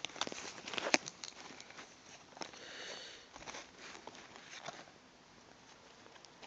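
Panini Select basketball cards being flipped through by hand: faint clicks and light slaps of card against card, the sharpest about a second in, dying away after about five seconds.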